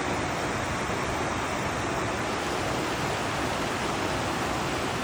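Alpine waterfall pouring, a steady full rush of falling water.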